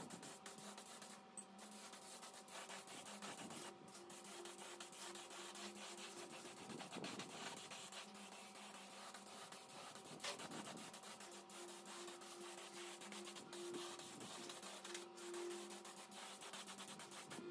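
Continuous rapid rubbing strokes, like sanding or scrubbing a rusty metal part, with a faint steady hum underneath.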